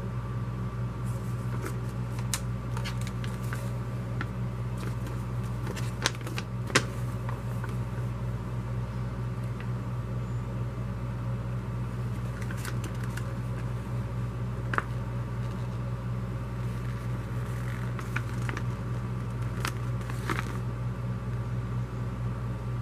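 Steady low hum, with a few sharp crinkles and clicks from paper flyers and a plastic-wrapped hair package being handled.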